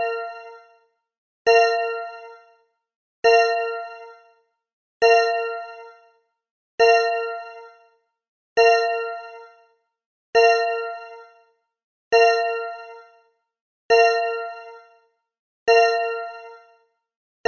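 A metallic ding struck over and over, about once every 1.8 seconds, each strike ringing and fading out over about a second: a looped stock sound effect.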